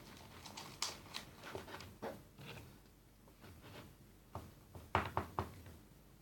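Slime being mixed in a bowl: faint scattered clicks and sticky ticks, a few around two seconds in and a quick cluster around five seconds in.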